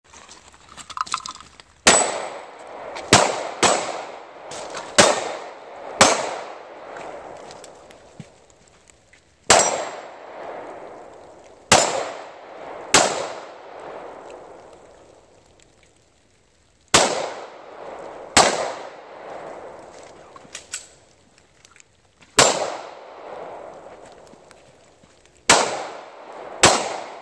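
Pistol shots fired at steel targets, over a dozen in irregular pairs and singles with pauses of a few seconds while the shooter moves. Each sharp crack is followed by a ringing clang that fades over a second or two, the sound of the hit steel plates.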